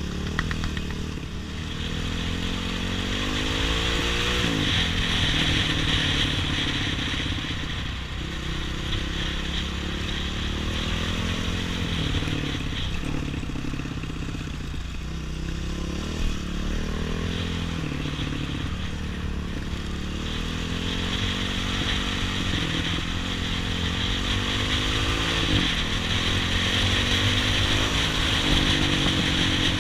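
Off-road trail motorcycle engine running under load. Its pitch climbs steadily and drops back sharply several times as the rider shifts gears.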